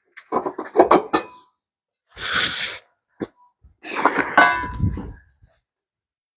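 Tools and metal exhaust parts clanking and knocking in irregular bursts, with a short hissing burst in the middle and a clatter near the end that rings briefly like struck metal.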